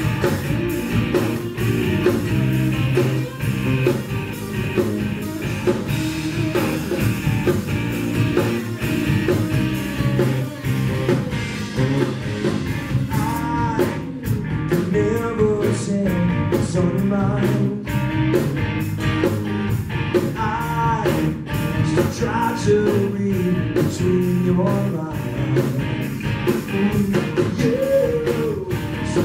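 A live rock band playing: electric guitars, bass guitar and a drum kit keeping a steady beat, with a man singing lead.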